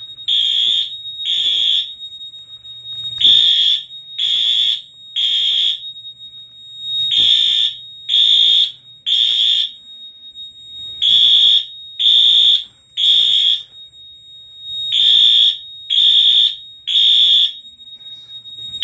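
Wheelock AS horn-strobe fire alarm horn sounding in short, loud, high beeps, grouped in bursts that repeat about every four seconds: the temporal evacuation pattern of a fire alarm system in alarm after a manual pull station was activated.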